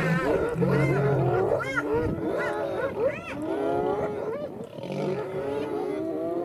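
Lions and spotted hyenas calling over one another in a confrontation: many overlapping short cries that rise and fall in pitch, from several animals at once.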